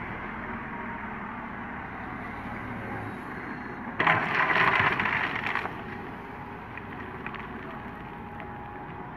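Diesel engines of a dump truck and a Sumitomo SH130 excavator running steadily. About four seconds in, a sudden loud burst of noise lasts about a second and a half, then drops back to the engines.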